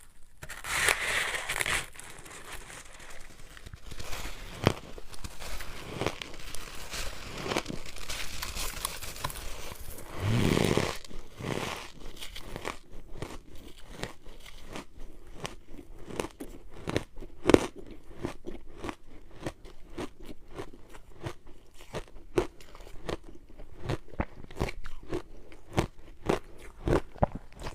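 Snow being bitten and chewed: a long run of sharp, crisp crunches, coming close together in the second half.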